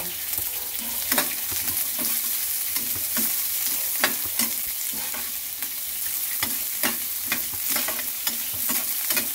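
Sliced white onion and garlic sizzling in hot oil in a stainless steel skillet while a metal spoon stirs them, with frequent sharp clinks and scrapes of the spoon against the pan over a steady sizzle.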